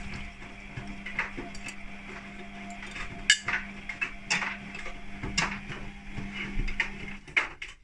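Hotpoint WMA32 washing machine tumbling its load, with irregular metallic clinks and knocks from the drum, which the owner puts down to a zip on a hoodie, though she fears a foreign object. A steady hum under it cuts off about seven seconds in.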